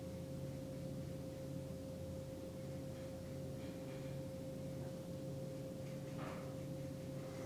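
Faint steady background hum: a single steady pure tone with a lower hum beneath it, like equipment or room electrics. One or two soft brief rustles come near the end.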